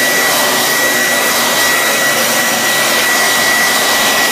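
Handheld electric hot-air dryer running steadily, a rush of blown air with a constant high whine, drying a fresh coat of paint.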